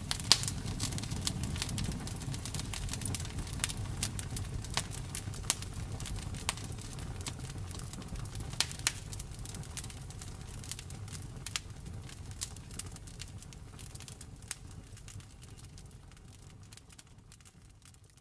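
Campfire crackling and popping, sharp snaps over a low rumble of the burning wood. The sound fades out gradually through the last several seconds.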